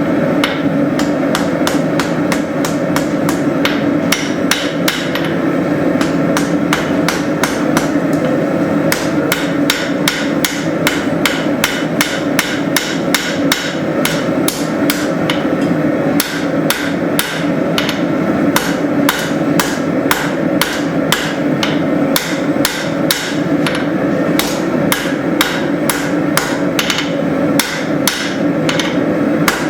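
Rounding hammer striking hot leaf-spring steel on an anvil in a steady rhythm of about three blows a second, with a steady rushing noise underneath.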